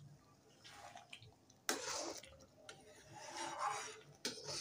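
Steel ladle stirring thick chana dal in a steel pan: wet sloshing strokes in three bursts, the first starting suddenly about two seconds in.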